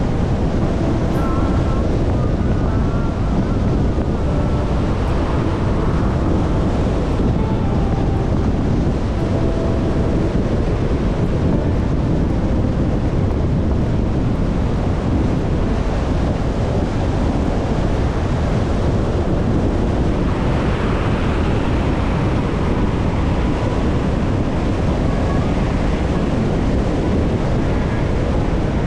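Steady low rushing noise of wind buffeting the microphone.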